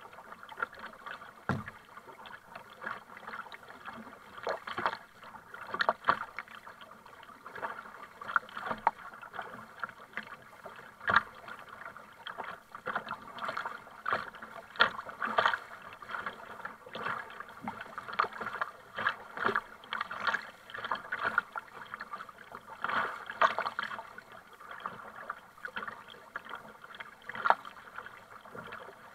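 Kayak paddle strokes splashing in sea water, an irregular run of splashes as a double-bladed paddle dips on alternate sides, with two sharp knocks among them.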